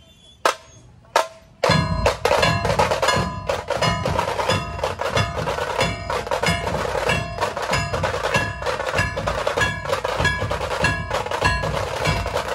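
Dhol-tasha ensemble drumming: a few single sharp drum strikes, then about two seconds in the full group crashes in with fast rattling tasha rolls over heavy dhol beats, loud and dense.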